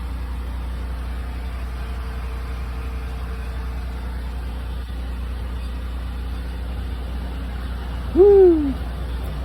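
A car engine idling with a steady low rumble. About eight seconds in, a short hoot-like call rises and falls in pitch once.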